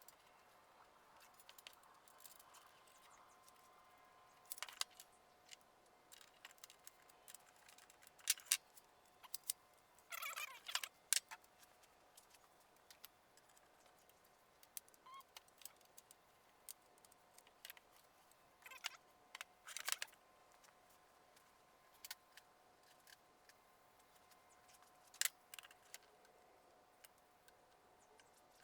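Scattered light metallic clicks and clinks of small parts and hand tools, with a brief scrape about ten seconds in, as a vintage table saw's blade guard is reassembled. A faint steady high hum sits underneath.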